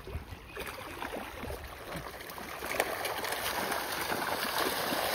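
Water splashing and churning as a large school of fish thrashes at the surface in a feeding frenzy, growing louder from about halfway through.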